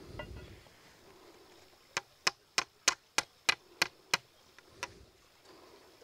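Small hammer tapping a pin into a wooden rifle stock: about eight quick, sharp taps at roughly three a second, then one lighter tap.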